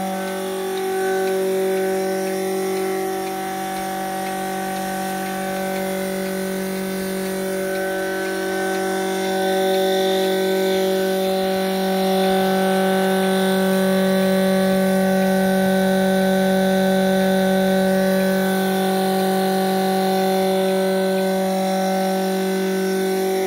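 Milking machine's vacuum pump unit running with a steady, even hum.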